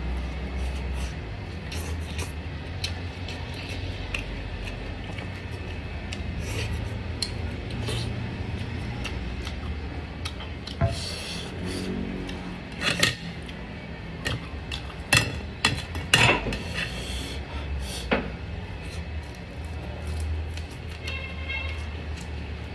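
Fried fish being picked apart by hand on a ceramic plate while eating, with scattered sharp clicks and taps of fingers and fish bones against the plate, the loudest a little past the middle, over a steady low hum.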